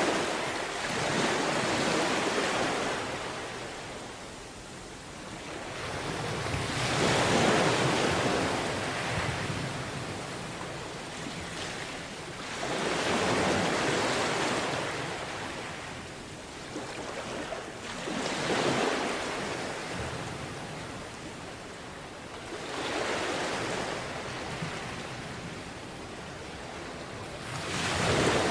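Sea waves washing onto a beach, each surge swelling and fading over a few seconds, about every five to six seconds.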